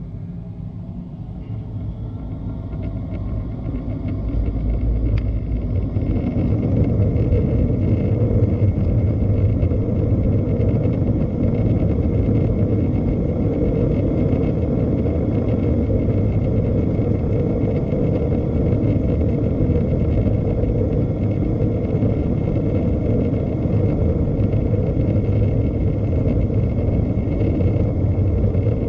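Airbus A320-214's CFM56 jet engines spooling up, the rumble building over the first few seconds and then holding as a loud, steady roar at high thrust, with a thin whine above it.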